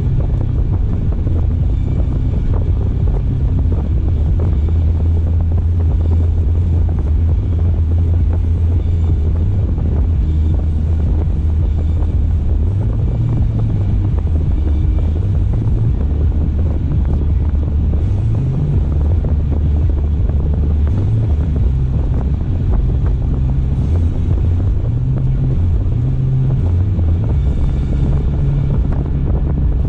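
Steady low rumble of a car driving, with tyre and wind noise.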